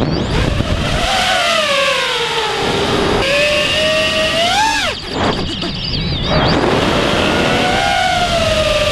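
The brushless motors of a Diatone Roma F5 V2 five-inch FPV quadcopter whine over a rush of air, their pitch gliding up and down with the throttle. About five seconds in, the whine climbs sharply, then drops away for a second or so before it returns and sweeps up and down again.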